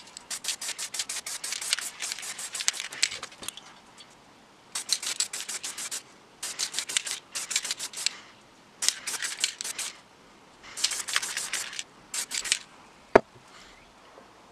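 Aerosol spray-paint can hissing in about six bursts of one to four seconds, separated by short pauses. A single sharp click near the end.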